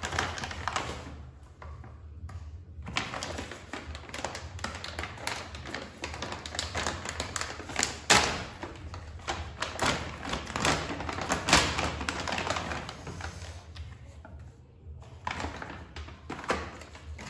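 Plastic food packaging being handled and opened: crinkling and rustling of a plastic pouch, with a run of light taps and clicks and a few sharper knocks as packets and a plastic tray are handled on the counter.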